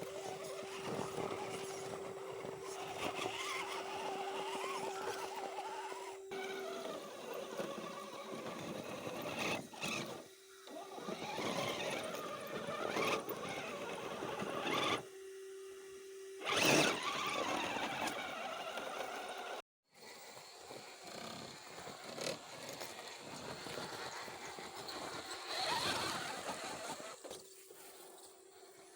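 Radio-controlled rock crawler driving on a trail: its electric motor and drivetrain running with a steady whine that comes and goes, and scraping noise from the tyres and chassis. The sound changes abruptly several times and drops out completely for a moment about twenty seconds in.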